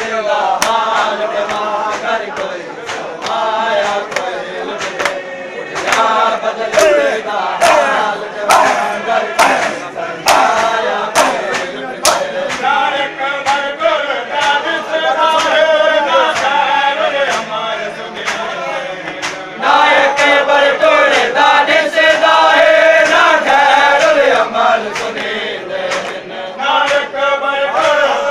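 A group of men chanting a noha in unison, with regular sharp slaps of hands on bare chests (matam) keeping the beat. The chanting grows louder about two-thirds of the way through.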